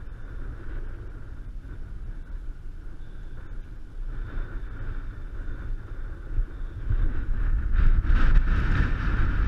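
Wind buffeting the camera's microphone, a steady low rumble that grows louder about seven seconds in.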